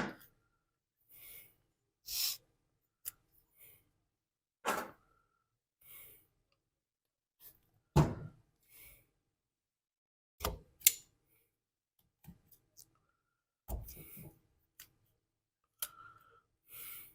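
Scattered short clicks and knocks of hand work on a snowblower's recoil starter as a knot is tied in the new starter rope, with quiet gaps between; the loudest knocks fall about 8 and 11 seconds in.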